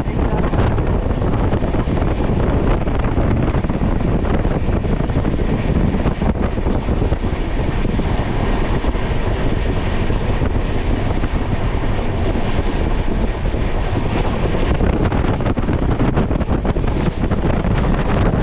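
Wind buffeting the microphone over the steady running noise of a moving train.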